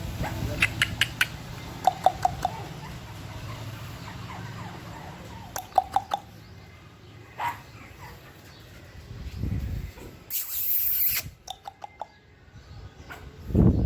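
Short, high squeaks from small animals, coming in quick runs of several at a time, over a low steady hum; a loud hiss lasts about a second, some ten seconds in.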